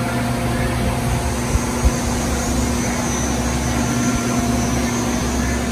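Lathe running steadily, spinning a large UHMW plastic workpiece: an even machine hum with a constant low drone. Two small ticks come just under two seconds in.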